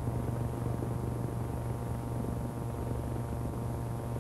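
Steady low hum and hiss of an old film soundtrack, even throughout, with no other event.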